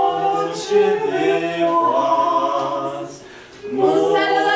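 A small group of people singing together without instruments while they circle the tree, breaking off for about half a second just after three seconds in before the next line starts.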